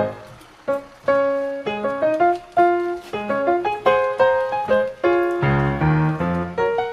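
Background music on solo piano: quick struck notes in a lively tune, with a short pause about half a second in.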